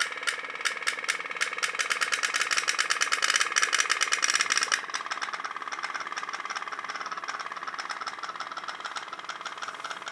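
Candle-fired tin pop-pop boat running: its candle-heated steam boiler makes a fast, even rattle of clicks, several a second. The rattle is louder for the first five seconds, then drops to a quieter, steadier putter.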